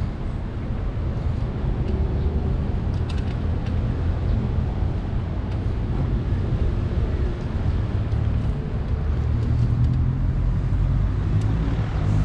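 Steady city street traffic: a continuous low rumble of passing road vehicles.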